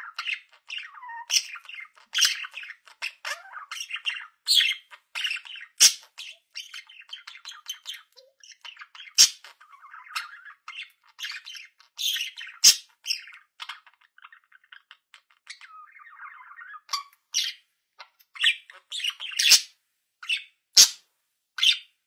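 Budgerigar warbling and chattering, with sharp squawks and clicks mixed in. Near the end the chatter thins out, leaving separate sharp calls.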